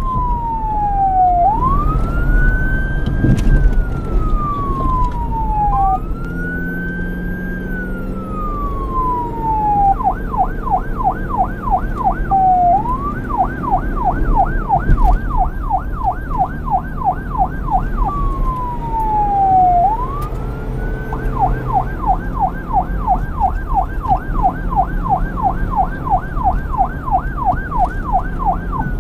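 Police car siren alternating between wail and yelp: slow rising and falling wails, then rapid yelps about three a second, back to a wail and into the yelp again near the end, over a low rumble.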